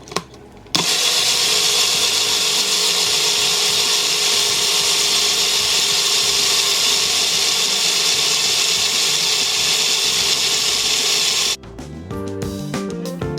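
Electric blender running steadily, blending a protein shake; it starts abruptly just under a second in and cuts off sharply near the end, with background music returning.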